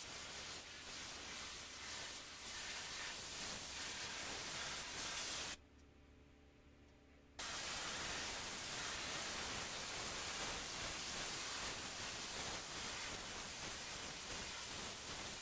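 Pressure washer lance blasting a high-pressure water jet onto sandstone paving, a steady hiss of spray. The hiss drops out for about two seconds midway, then resumes unchanged.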